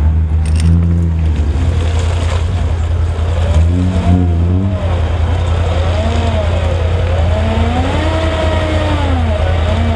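Off-road SUV engine working hard in deep mud, a steady low rumble, with the revs rising and falling over and over from a few seconds in as the wheels spin.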